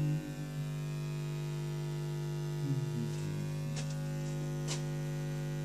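Steady electrical hum, one constant pitch with many overtones, with two faint clicks about four and five seconds in.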